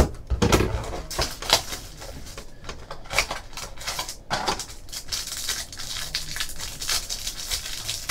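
Orange utility knife slicing open a cardboard trading-card box, with sharp clicks and scrapes, then a clear plastic card wrapper being handled and torn open with a crinkling rustle.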